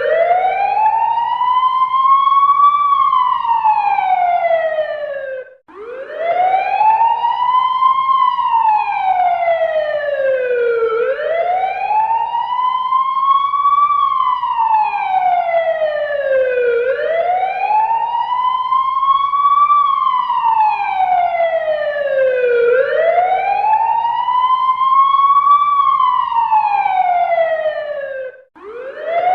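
Fire engine siren sounding a slow wail: the pitch rises for about three seconds and then falls for about three, over and over. It cuts out for a moment about six seconds in and again near the end, then starts its rise afresh.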